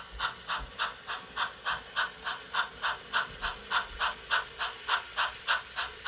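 HO scale model steam locomotive's onboard sound playing steady exhaust chuffs at about four a second as it runs, thin and lacking bass as from a small speaker.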